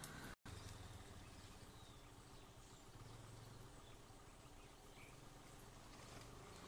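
Near silence: faint outdoor background noise with a low hum, cut to total silence for a moment about half a second in.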